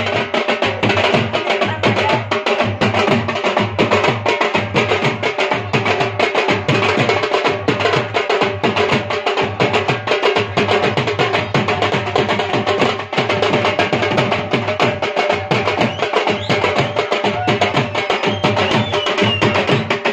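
Dhol drum played in a fast dance rhythm, a steady stream of rapid sharp strokes, with a few held musical tones underneath.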